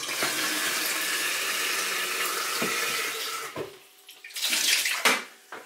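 Kitchen cold tap running into an electric kettle, filling it with a steady rush of water for about three and a half seconds before it is shut off. A short burst of noise follows about a second later.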